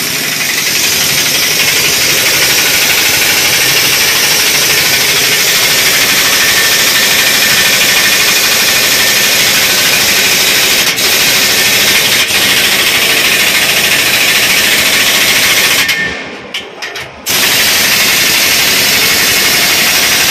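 Pneumatic impact wrench hammering steadily as it tightens the nuts where the leaf spring clamps to a lorry's axle. It stops for about a second near the end, then starts again.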